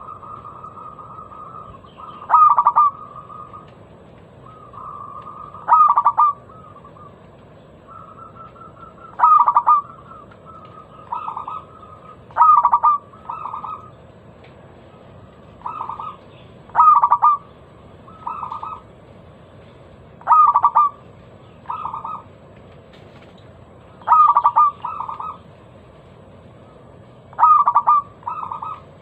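Local zebra dove (perkutut) cooing: about a dozen short, loud phrases of rapid notes, repeating every two to four seconds. Some phrases have a softer follow-on note or a drawn-out purr between them, over a steady low hiss.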